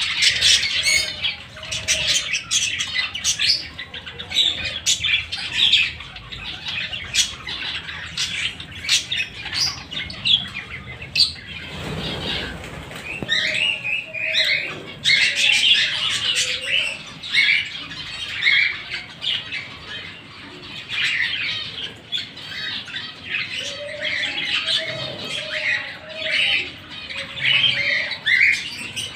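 A flock of budgerigars chattering, a dense run of short warbling chirps and squawks that never stops.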